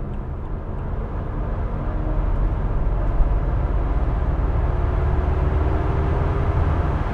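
Supercharged V8 of a BMW Alpina B7 pulling at full throttle, heard from inside the cabin over road noise, rising slowly in pitch toward about 5,000 rpm. The engine is freshly rebuilt and recently broken in.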